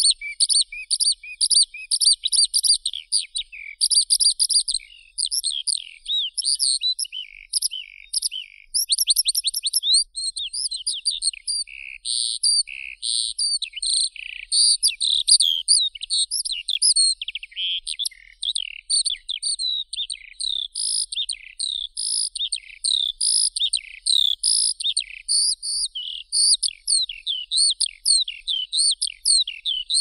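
Skylark singing its long, unbroken song: a fast, continuous stream of high chirps, warbles and trills with no pauses, including a run of rapid repeated notes about nine seconds in.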